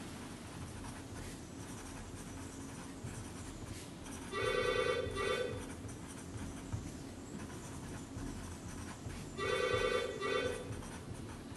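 A telephone rings twice, about five seconds apart, each ring an electronic trilling tone in a longer pulse followed by a shorter one. Faint pen-on-paper writing sounds lie underneath.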